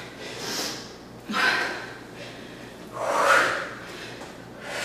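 Four sharp, noisy breaths out from a woman doing jumping back lunges, one with each jump, spaced about a second to two apart.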